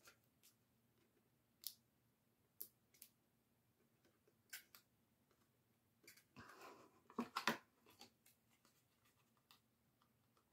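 Faint handling sounds of patterned cardstock being folded and pressed into a box: scattered light clicks and taps, and a short paper rustle about six seconds in that is the loudest part.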